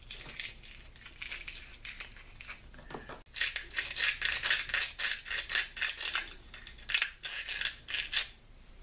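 Sandpaper rolled around a screwdriver tip rasping inside a hollow turkey wing bone to smooth its bore, in quick back-and-forth strokes. The scratching is lighter at first and turns louder and faster from about three seconds in.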